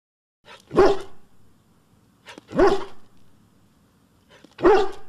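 A dog barking three times, single barks about two seconds apart.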